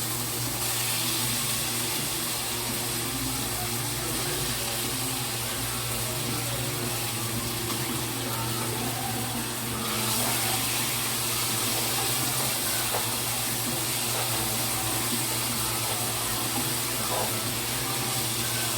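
Marinated beef strips sizzling in hot oil as they pan-fry over high heat: a steady hiss with a low hum underneath, getting brighter about ten seconds in.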